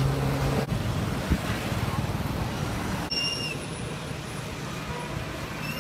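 Steady road traffic and vehicle noise. A voice trails off at the start, there is a single knock about a second in, and a short high tone sounds about three seconds in.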